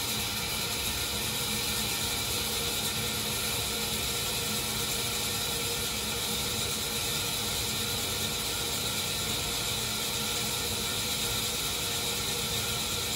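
Hauschild SpeedMixer, a dual asymmetric centrifugal lab mixer, running steadily at speed while ceramic grinding beads grind coated aspirin tablets to powder in its cup. The machine's sound is even, with a constant pitch.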